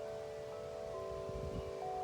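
Wind chimes ringing in the wind: several long, overlapping tones that die away slowly, with fresh strikes about a second in and again near the end. A low rumble of wind runs underneath.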